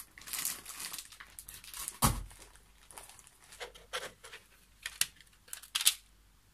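Packaging being handled: a run of short rustles and crinkles, with a dull thump about two seconds in and a few sharper crinkles near the end.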